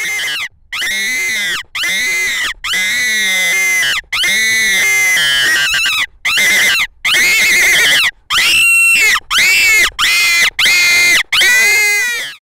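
Hand-held fox call blown with the hand cupped around it, giving about a dozen loud, wailing squeals in quick succession, each rising and falling in pitch. It imitates a prey animal's distress cry to draw foxes in.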